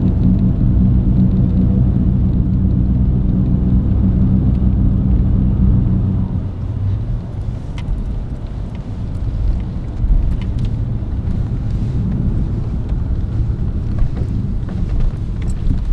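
Toyota Tacoma pickup driving over snow, heard from inside the cab as a steady low engine hum and road rumble. About six seconds in, the hum fades and a rougher rumble takes over.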